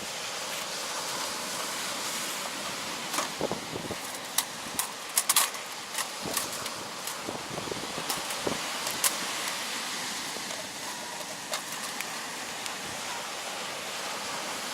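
Steady rush of sea surf and wind, with scattered sharp clicks and taps, the loudest a quick cluster about five seconds in.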